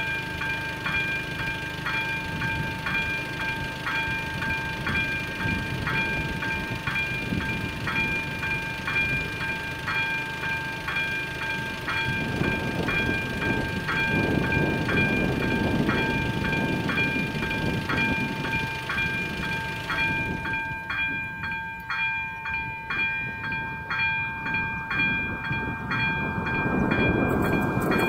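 Level-crossing electronic warning bell ringing with an even, repeating chime. A train's rumble comes in from about halfway through and grows as it approaches the crossing.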